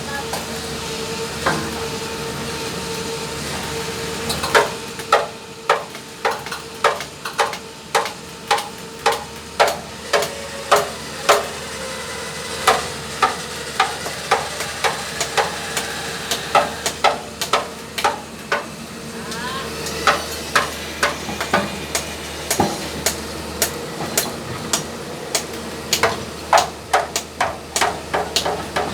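Hammer striking again and again, irregularly, about one to two blows a second from about four seconds in, over a steady hum.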